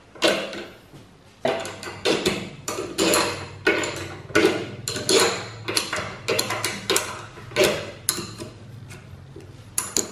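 Irregular metallic clinks and knocks, about two a second, each ringing briefly: a steel spanner and long steel bolts working the flange plate that presses a spring-loaded flange down onto a combine harvester's guide cylinder.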